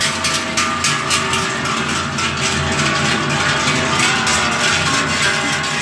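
Large cowbells on a herd of walking cows clanging, many bells at once, their overlapping tones blending into a continuous ringing din.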